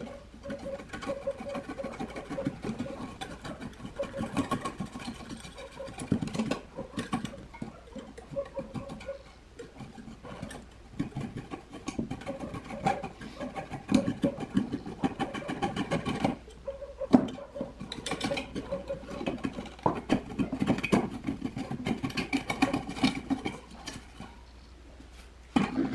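Utility knife blade scraping the perished old surround off the rim of a 10-inch speaker's metal basket: rough, irregular scraping and scratching with many sharp clicks.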